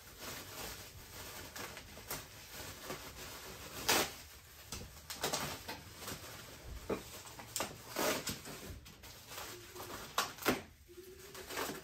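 Plastic packaging rustling, with scattered knocks and clicks, as wrapping is pulled off a new dirt bike in its steel shipping crate.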